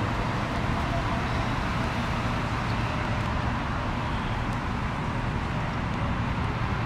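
Steady outdoor city traffic noise: an even low rumble with a hiss above it and no distinct events.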